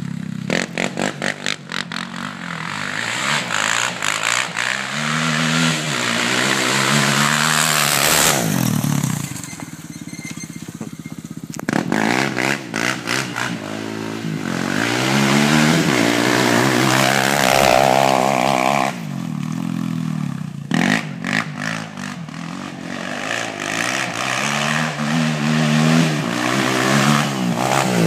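Polaris ATV engine revving up and down over and over as the quad accelerates and slows on loose sand, with choppy, stuttering throttle stretches near the start and about two-thirds of the way through.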